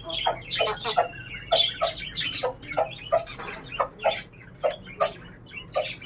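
Aseel chickens clucking as they feed, a quick run of short notes, about two to three a second.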